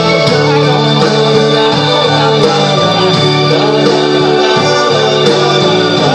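Live band playing loudly and steadily: drum kit, electric guitar and keyboards, with a woman singing lead.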